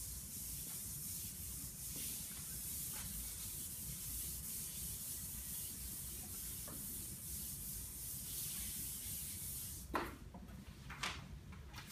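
Chalkboard eraser rubbing steadily across a chalkboard, wiping off chalk writing. The rubbing stops about ten seconds in, followed by a few light knocks.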